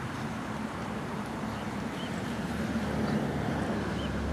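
Steady outdoor rush of flowing river water and distant traffic, with a low rumble swelling near the end. A faint high chirp repeats about every two seconds.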